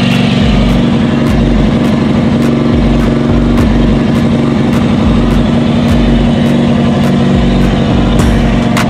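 16 hp Briggs & Stratton engine of a Toro Proline walk-behind mower running steadily, loud and close.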